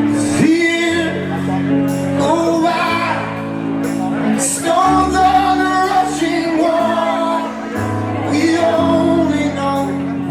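Live rock band playing a song with a lead singer's voice over long held bass notes that change every second or two.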